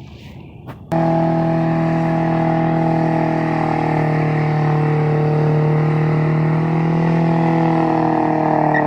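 A motor vehicle engine held at steady high revs, its pitch wavering slightly. It cuts in suddenly about a second in.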